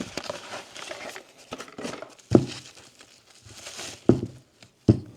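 Crinkling and rustling of battery-pack packaging being handled, followed by three sharp knocks of items being set down.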